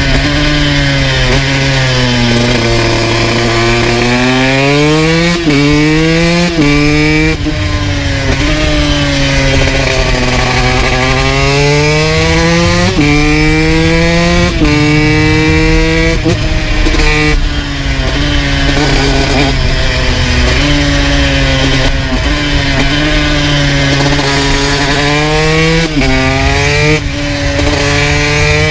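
2002 Honda CR125 two-stroke engine with a full FMF exhaust, ridden hard: the revs climb and snap down through several quick upshifts, then sink as the bike slows, and the pattern repeats a few times.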